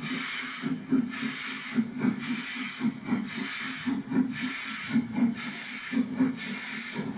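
Somerset & Dorset Joint Railway 7F 2-8-0 steam locomotive moving slowly with steam hissing from its cylinders in rhythmic pulses about once a second, over a steady low rumble.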